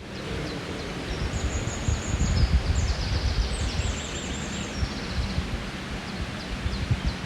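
Steady, fluctuating low rumbling outdoor noise with small birds chirping in short repeated high phrases from about a second in.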